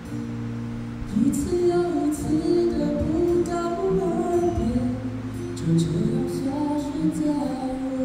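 A singer with live acoustic guitar accompaniment; the voice comes in about a second in over the guitar.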